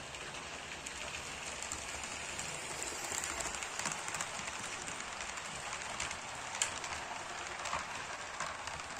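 HO-scale model steam locomotive and passenger cars rolling past on the track: a steady rushing clatter of small metal wheels on rails, louder from about three seconds in as the engine goes by, with a few sharp clicks.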